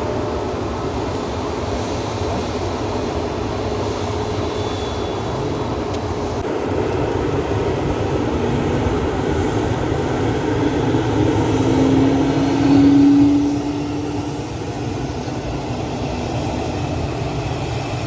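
Jet airliner engine noise over a steady rumble, with a low tone that rises slightly in pitch and swells about two-thirds of the way through before falling away.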